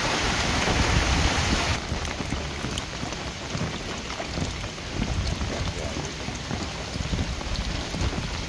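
Steady rain. For the first second and a half it is louder and hissier, rain on a corrugated metal roof; then it changes suddenly to softer rain falling on shallow floodwater, with scattered drops.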